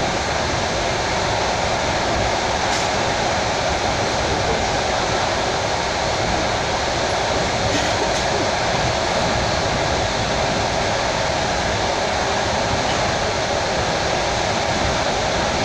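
Steady running noise of a Russian suburban electric train (elektrichka) at speed, heard from inside the carriage: an even rush of wheel, rail and air noise, with two faint clicks about three and eight seconds in.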